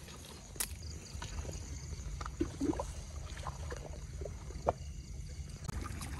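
Quiet rocky-shore ambience: a low steady rumble of the sea with scattered faint clicks and small trickles of water.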